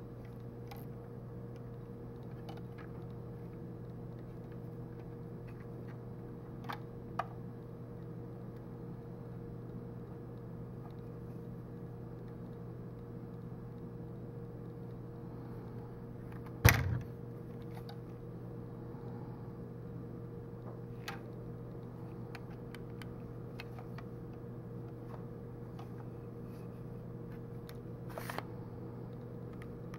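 Steady low hum with a few light plastic clicks and knocks from a Lego brick model handled in the hands, one sharper knock a little past halfway.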